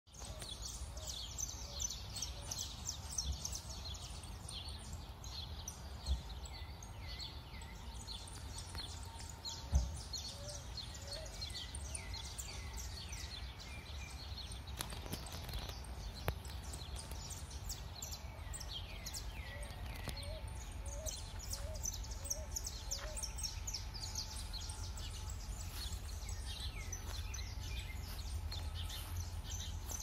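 Chorus of several wild birds calling and singing, with many quick high notes sliding downward and, at times, runs of short lower notes. A steady low rumble lies underneath, with two sharp bumps around six and ten seconds in.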